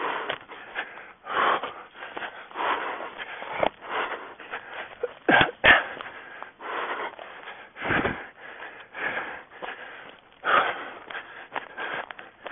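A runner's heavy breathing, a loud breath about every second and a bit, mixed with rustling and brushing through forest undergrowth. A few sharp thumps land around the middle.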